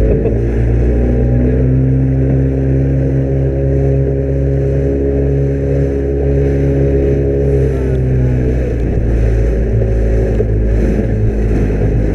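Vehicle engine running at a steady speed with an even drone. Its tone wavers for a few seconds past the middle and rises again near the end.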